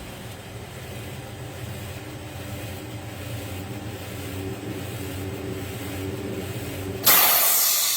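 Hunter Road Force HD wheel balancer spinning a dually truck tire with its load roller pressed against the tread, a steady motor hum while it measures tire runout. About seven seconds in, a sudden loud hiss cuts in and slowly fades.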